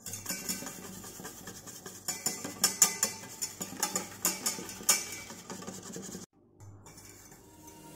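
Wire balloon whisk beating egg yolk and condensed milk in a stainless steel bowl, its wires clinking quickly and unevenly against the metal sides. The whisking cuts off suddenly about six seconds in.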